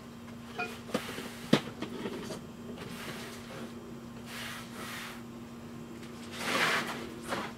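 Handling noises: a couple of sharp clicks and knocks about one to one and a half seconds in, then short rustling swells near the end, over a steady low hum.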